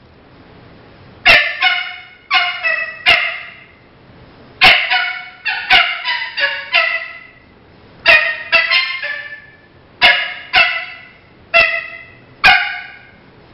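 Coyote barks blown on a mouth diaphragm predator call: about nineteen short, sharp barks in runs of two to four, each dropping in pitch.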